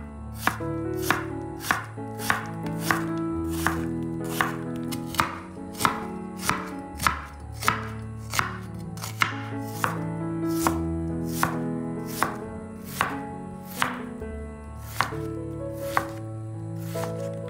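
Chef's knife dicing an onion on a wooden cutting board: sharp, even knife taps on the board, about one and a half per second.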